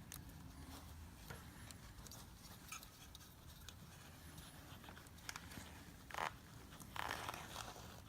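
Faint clicks and handling noises of hands fitting spark plug wires onto the engine, over quiet room tone. The loudest click comes about six seconds in, and a short rustle follows near the end.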